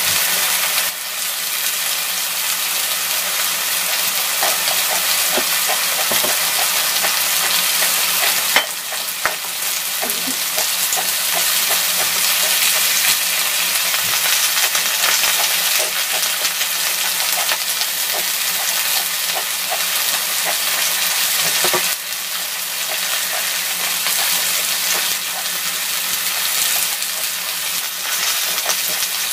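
Pork neck, mushrooms and vegetables sizzling in oil in a large round frying pan: a steady frying hiss with scattered small crackles and pops.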